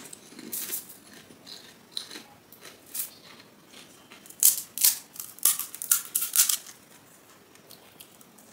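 Crisp crunching and crackling of hollow fried panipuri (golgappa) shells in short bursts, with a dense run of crackles from about four and a half to six and a half seconds in.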